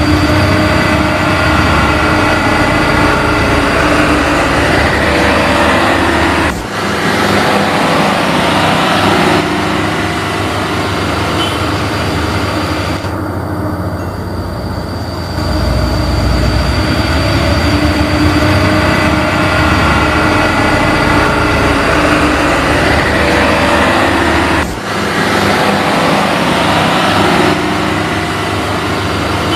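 Radio-controlled model construction vehicles running: a steady, loud mechanical whir with a thin high whine over it, broken abruptly twice.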